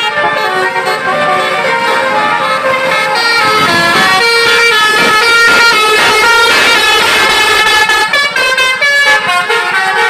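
Basuri 'telolet' multi-tone musical vehicle horn playing a tune: several horn tones sound together and step up and down in pitch in short notes, loudest in the middle.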